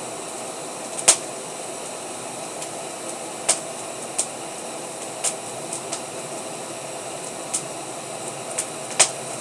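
Steady mechanical hiss or hum, with sharp high clicks at irregular moments, the loudest about a second in and near the end.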